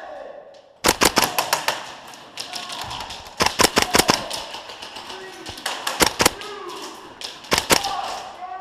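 Gas blowback airsoft rifle firing four short rapid bursts of sharp clacking shots, each burst only a fraction of a second long.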